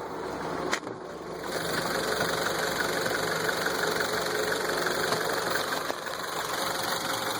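1.4 TSI EcoFuel engine with a 7-speed DSG idling with a regular knock from a faulty flywheel. There is a single sharp click near the start, and the engine sound grows louder after that.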